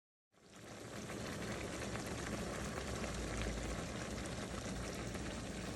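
Steady road and engine noise inside a moving car, a low rumble under an even hiss with faint ticks.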